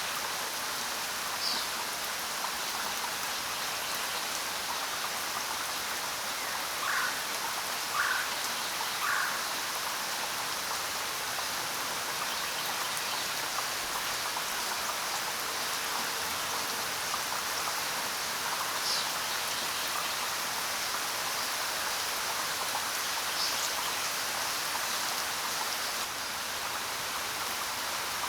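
Steady rain, an even hiss of falling drops. A few short bird calls sound over it: three about a second apart around a quarter of the way in, and a few brief high chirps elsewhere.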